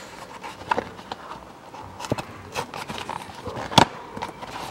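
Cardboard box of a new cabin air filter being handled and opened by hand: scattered rustles, scrapes and light taps, with one sharper knock near the end.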